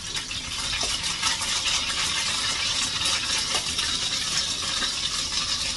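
Egg-dipped bread slice frying in hot oil in a pan, a steady sizzle with fine crackling.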